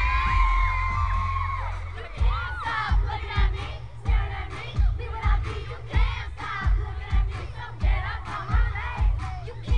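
Live pop concert heard from within the crowd. For the first two seconds high held voices rise over a low bass rumble. Then a steady kick-drum beat of about one and a half thumps a second comes in, with singing and crowd voices over it.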